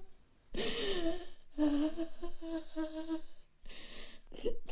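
An elderly woman weeping: short, moaning sobs on a nearly even pitch. There is a breathy wail about half a second in and a sharp intake of breath about three and a half seconds in.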